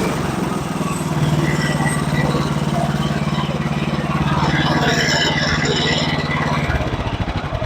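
Sawmill running steadily under power, an engine-driven saw working through the lumber; the sound fades out near the end.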